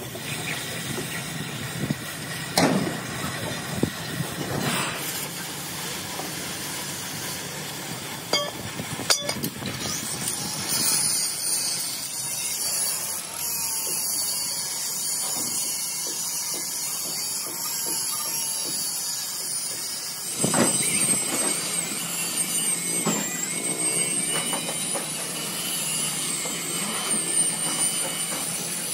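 Oxy-fuel cutting torch hissing steadily as it cuts through a steel truck chassis rail, with a few sharp metal knocks in the first ten seconds.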